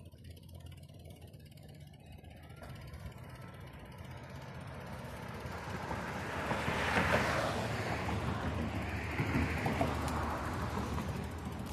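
Road traffic passing close by: tyre and engine noise swelling to a peak about seven seconds in, with a second swell soon after, over a steady low rumble.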